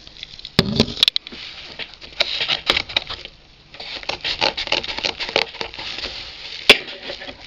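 Scissors cutting through a cardboard box, with scratchy, crackling cardboard noise and small clicks as the box is handled. A low knock comes about half a second in and a sharp click near the end.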